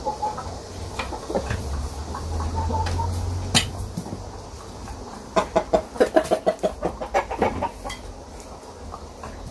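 Chickens clucking, with a quick run of about a dozen clucks in just over two seconds in the second half. A single sharp knock comes about a third of the way in.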